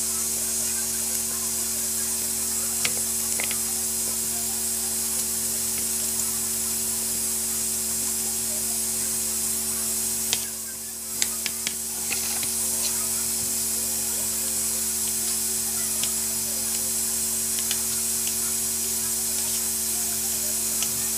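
Steady hiss with a low hum from a covered pot of chickpeas boiling on a gas stove. A few light knife taps as tomatoes are cut on the counter. The hiss dips briefly about halfway, with a cluster of clicks.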